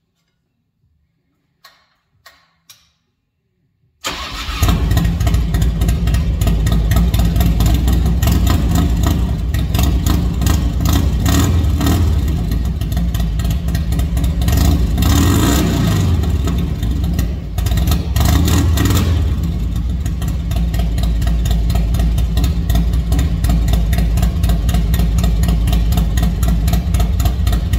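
Cold start of a 1991 Harley-Davidson FXR's air-cooled Evolution V-twin, fed by an S&S carburetor and breathing through a Thunderheader exhaust: a few faint clicks, then about four seconds in the engine catches at once and runs loud with a steady pulsing beat, its revs rising and falling a few times in the middle.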